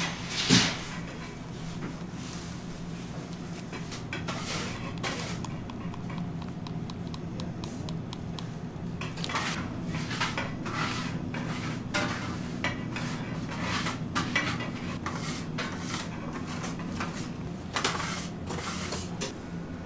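Light kitchen handling sounds: scattered clinks, taps and rubs of utensils and containers, with one louder knock about half a second in and more frequent taps in the second half, over a steady low hum.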